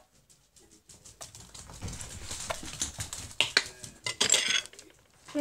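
Kitchen clatter as mustard is put on bread: a knife and plate clinking, knocking and scraping on a counter, with scattered clicks. One sharp click at the start, then a busier run of clatter from about a second in.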